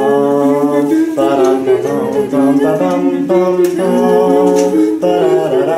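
A cappella vocal music: several voices singing held chords in harmony, the chord changing every second or so.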